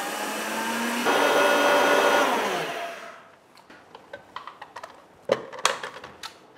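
Countertop blender motor grinding rolled oats into powder: it climbs in pitch as it speeds up, runs at full speed, then winds down and stops about three seconds in. It is followed by a few clicks and knocks as the jar is unlatched and lifted off the base.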